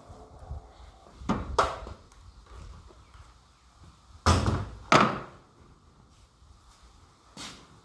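Heavy knocks and clunks, as of steel parts being handled or struck: two about a second and a half in, two louder ones about four to five seconds in, and a lighter one near the end.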